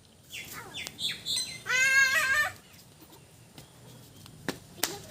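Ducklings peeping: short high calls that fall in pitch, then a louder wavering call about two seconds in. Two sharp clicks come near the end.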